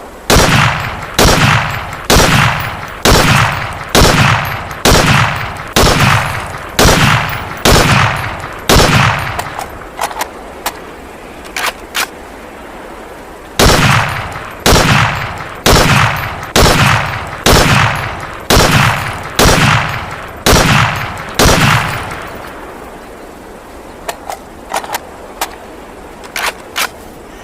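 Gewehr 43 semi-automatic rifle firing: a string of about ten shots, roughly one a second, each trailing off in a short echo, then a few light metallic clicks. A second string of about nine shots follows, then more scattered clicks near the end.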